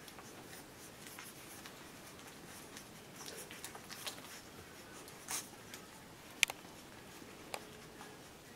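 Litter of whippet puppies suckling from their mother: faint, scattered soft clicks and smacks, with one sharper click a little past the middle.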